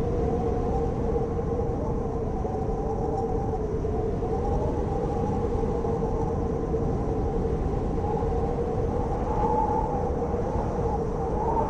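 Blizzard wind: a dense low rush with a steady howling tone and a higher whistling tone that wavers up and down in pitch.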